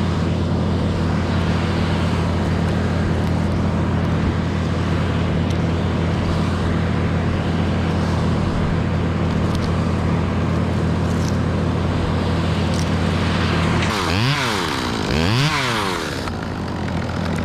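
Two-stroke chainsaw idling steadily, then revved twice in quick succession near the end, the pitch rising and falling each time.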